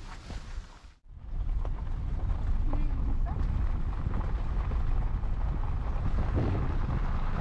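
Wind buffeting the camera microphone outdoors, a steady low rumble that starts after a cut about a second in.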